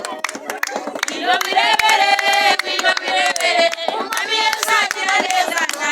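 Group of voices singing a worship song together, joining in about a second in, over steady hand clapping.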